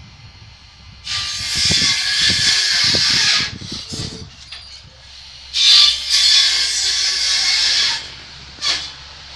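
Two loud bursts of hissing noise, each lasting about two and a half seconds and cutting in and off suddenly, with a few low knocks during the first and a brief hiss near the end.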